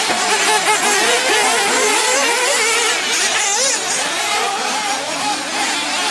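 Several RC off-road buggy engines racing at once, many high-pitched engine notes overlapping as each rises and falls with throttle on and off around the track.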